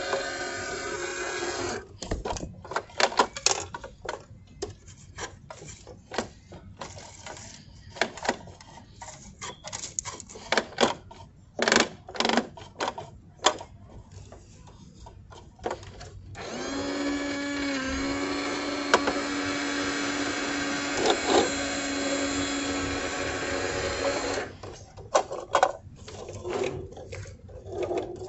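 Small battery motor of a toy garbage truck whirring steadily, stopping after about two seconds. A long run of plastic clicks and clacks follows. The motor whirs again for about eight seconds, and more clicks come near the end.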